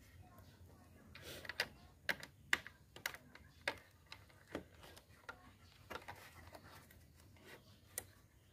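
Light, irregular plastic clicks and taps, a dozen or so spread between about one and eight seconds in, from a motorcycle headlight bulb and its plastic holder being fitted back into the headlight housing by hand.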